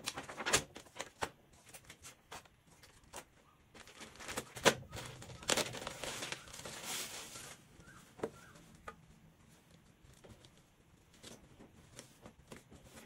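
Clear plastic polybag crinkling and rustling as a shirt is handled and pulled out of it, with scattered sharp taps and clicks. The crinkling is thickest for about two seconds around the middle, then only light taps of fabric and packaging being handled.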